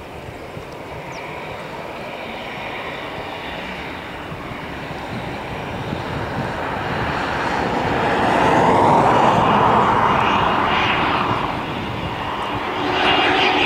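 Cessna CitationJet CJ2+ business jet's twin Williams FJ44 turbofans coming in to land, a jet rush that swells to its loudest about nine seconds in with a falling sweep in pitch as it passes, eases off, then rises again near the end with a steady whine.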